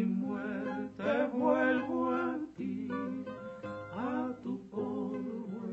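Instrumental interlude of a guitar-accompanied song: acoustic guitar playing a melody over a steady accompaniment between sung verses.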